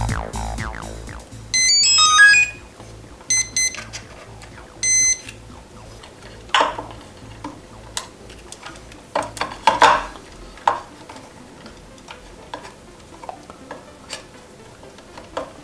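The onboard electronics of an RC4WD Bobcat R350 1:14 hydraulic track loader beeping at power-up as its LiPo battery is plugged in: a quick run of beeps at changing pitches, then a few single beeps. These are followed by clicks and knocks of the battery pack and wiring being handled and pushed into the chassis.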